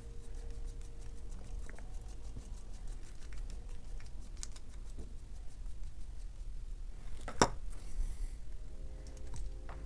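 Faint clicks and taps of a small screwdriver and loose metal parts as the negative-contact screw is undone on a laser level's circuit board, with one sharper click about seven seconds in. A low steady hum runs underneath.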